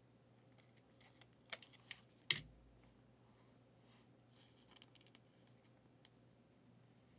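Trading cards and clear plastic card sleeves being handled: three faint clicks about a second and a half to two and a half seconds in, the last the loudest, and a soft rustle later on, with near silence between.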